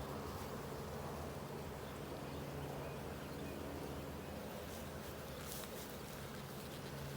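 Honeybees buzzing around an open hive, a steady continuous hum.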